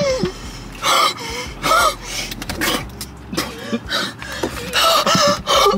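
Sharp gasping and panting breaths, sucked in and blown out through the mouth, with short pained vocal sounds. This is a reaction to the burning heat of an extremely hot chili chip held in the mouth.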